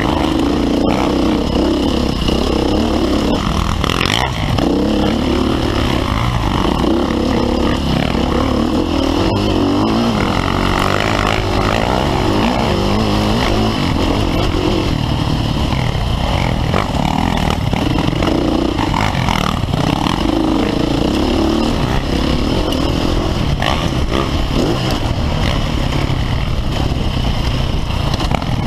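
Off-road dirt bike engine under hard riding, its pitch rising and falling every second or two as the throttle opens and closes, heard close up from the rider's camera with wind and trail noise.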